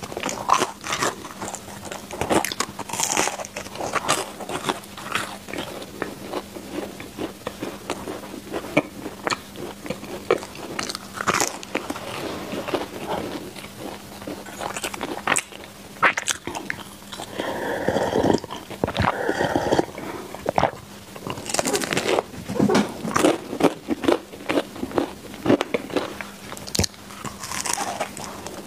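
Close-miked biting and chewing of crispy baked mochi balls: crunches as the crisp crust breaks under the teeth, then chewing of the soft, springy inside, with a fresh bite near the end.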